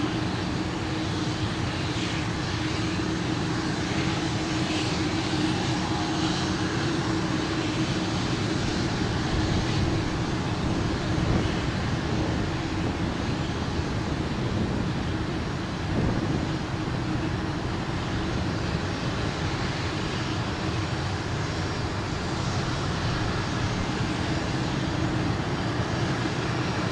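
Airbus A320 airliner on final approach, its jet engines a steady rumble and hiss with a low hum.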